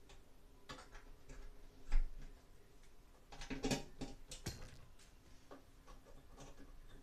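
Scattered clicks and light knocks of a hand screwdriver and fingers working on a ceiling exhaust fan housing, with a dull thump about two seconds in and a quick run of clicks a little past the middle.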